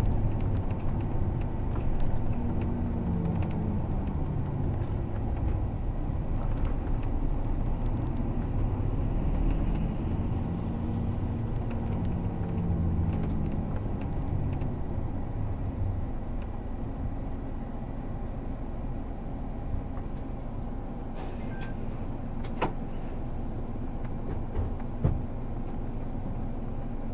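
Inside the cabin of a highway coach driving on city streets: steady engine and road rumble, the engine note rising and falling through the first half, then quieter and steadier. A couple of light clicks come in the last few seconds.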